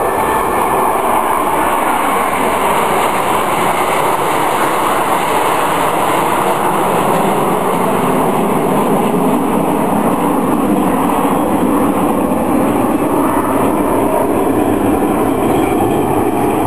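Steady jet engine noise from a formation of Canadair CT-114 Tutor jets passing overhead.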